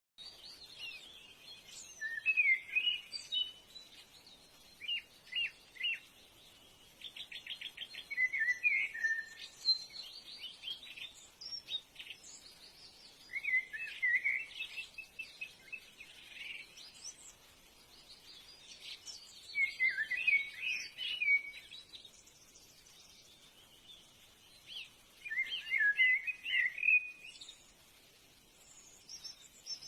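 Bird song: short chirping, warbling phrases, repeated every few seconds, with a rapid trill in between.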